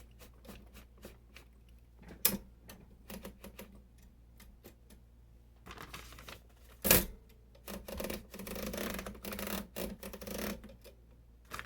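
1950s Royal manual typewriter being worked: scattered light clicks, a sharp clack about two seconds in and a louder one about seven seconds in, then a few seconds of continuous mechanical rattling.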